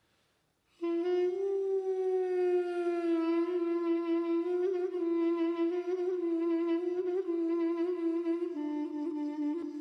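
A wooden end-blown wind instrument playing a long held note with a slight waver, entering about a second in and stepping down a little near the end, part of an improvised introduction in an old Middle Eastern scale.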